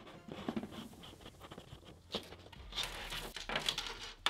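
Cables and wiring parts being handled: scraping and rustling, with a sharp click about two seconds in and a louder stretch of rustling shortly after.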